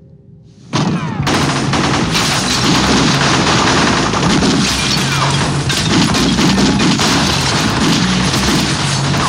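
Dense, continuous gunfire from several guns in a film shootout soundtrack, starting suddenly about a second in and keeping up without a break.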